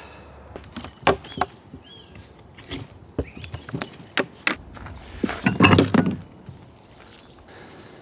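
Scattered knocks and clatter of camping gear being handled, with the loudest a heavier thump and rustle about six seconds in, while small birds chirp in the forest around.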